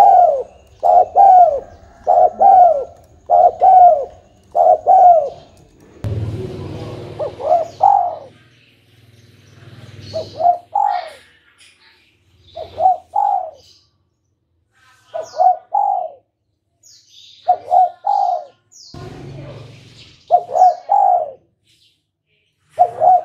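Spotted dove cooing: phrases of two or three bending coos, coming quickly at first, then every two to three seconds.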